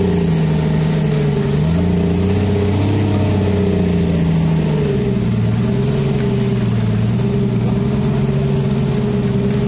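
Fishing boat's engine running steadily, its pitch dipping about a second and a half in, recovering, then settling to a lower note about five seconds in.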